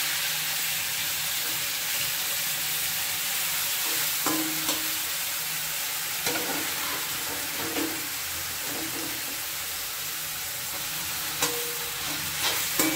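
Grated carrots sizzling as they fry in hot refined oil in an aluminium kadhai, a steady frying hiss. A metal slotted spatula stirring them gives a few short scrapes and taps.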